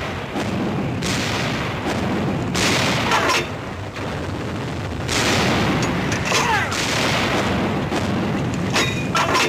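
Artillery barrage: heavy guns firing in quick succession, booms over a continuous rumble, with a falling whistle about every three seconds.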